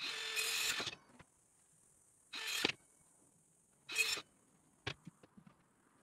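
Cordless circular saw cutting through a thin wooden bed slat in three short bursts: the first about a second long, then two briefer cuts. A few light knocks follow near the end.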